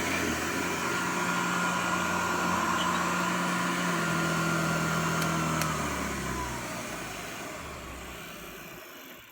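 Vintage Hoover 750 vacuum cleaner's motor running steadily, then switched off a little past halfway, its whine sliding down in pitch as it coasts smoothly to a stop. Very smooth running, which the owner takes as a sign of serviced, freshly greased bearings.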